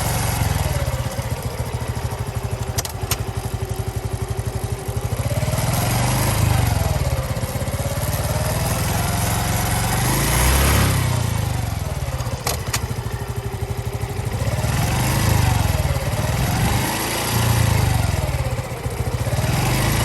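Honda Cross Cub 110 (JA60) single-cylinder engine idling and being revved up and down several times, with a couple of sharp clicks. It carries the abnormal noise the owner is tracking down, which a chain adjustment has not cured.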